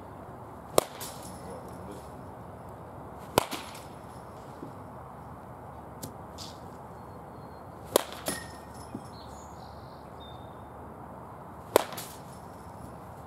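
Baseball bat hitting baseballs: four sharp cracks three to four seconds apart, each followed shortly by a softer knock.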